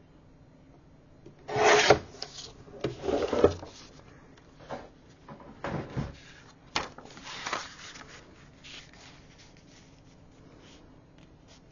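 A sliding paper trimmer's blade rasping along its rail as it cuts scrapbook paper, in two loud strokes about a second and a half and three seconds in. Lighter paper rustles and small taps follow as the cut paper is handled on the cutting mat.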